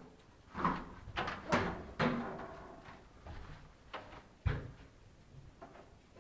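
A few irregular knocks and clunks, the sharpest about a second and a half in and a deeper thump about four and a half seconds in, with faint rustling between.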